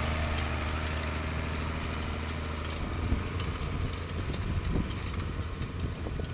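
Fendt Farmer 312 tractor's diesel engine running steadily while pulling a disc harrow. Its low drone weakens and turns rougher about halfway through as the tractor moves away, with a few light clicks.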